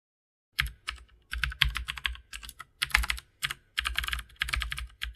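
Computer keyboard typing: quick, irregular key clicks in bunches, starting about half a second in.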